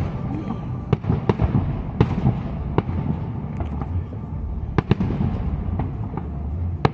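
Aerial firework shells bursting: a string of sharp bangs about every second, over a steady low background rumble.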